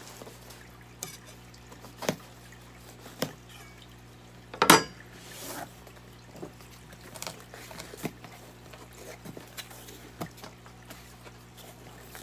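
A cardboard shipping box being cut with a large kitchen knife and turned over in the hands: scattered knocks and scrapes, the loudest a sharp knock with a short rattle a little under five seconds in. Underneath, the steady low hum of a running aquarium.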